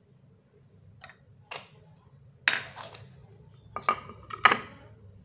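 Kitchenware clinking and knocking, as bowls, plates or utensils are handled and set down: about half a dozen sharp strikes. The loudest come about two and a half seconds in and near the end, a few of them ringing briefly.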